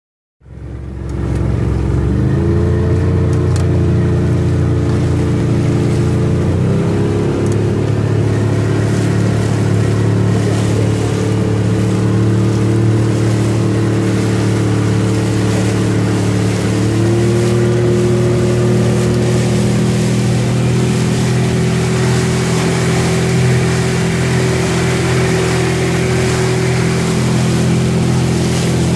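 Shetland 535 motorboat's engine running under way, its pitch stepping up about two seconds in, again around seven seconds and again around seventeen seconds as engine speed rises. A steady rushing hiss runs under it and grows louder near the end.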